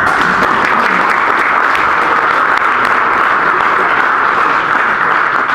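Audience applauding: a steady burst of clapping that begins suddenly and dies away near the end.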